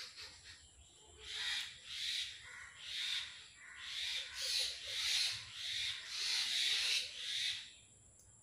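A person blowing their nose hard again and again: about eight breathy blasts in six seconds, the last ones longer.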